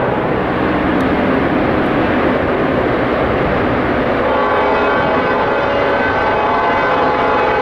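Diesel freight locomotives led by ICE 6434 approaching with their engines running, and from about four seconds in a locomotive horn sounding steadily over them.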